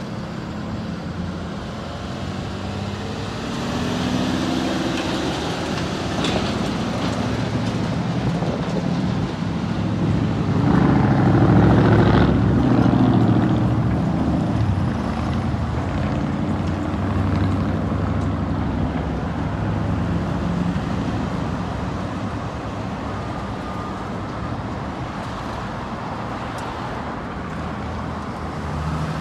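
Road traffic at an intersection: cars and SUVs driving past with engine hum and tyre noise, loudest as a vehicle passes close about eleven to thirteen seconds in.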